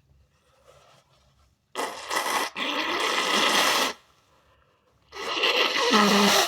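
Two loud bursts of air forced through a person's nose, each lasting one to two seconds, with a little voice near the end of the second.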